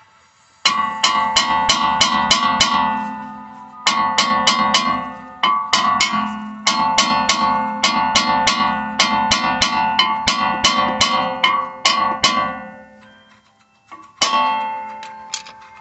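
Repeated hammer blows on a cast-iron rear brake rotor of a Kia Forte, about four strikes a second in several runs with a pause near the end. Each blow leaves the disc ringing. The blows are freeing a rotor stuck fast on the hub.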